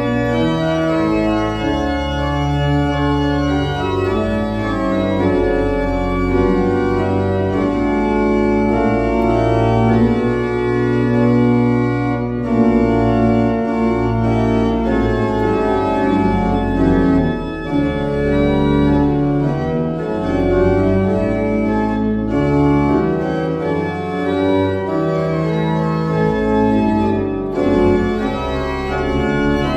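Pipe organ improvising in many voices, with held chords that shift over sustained low bass notes. The instrument is a 26-stop baroque-type organ rebuilt from a 1910 Rieger organ.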